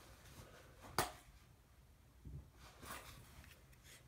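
Quiet handling of small carry items, with one sharp hard click about a second in as an object is set down, then a couple of faint soft handling noises.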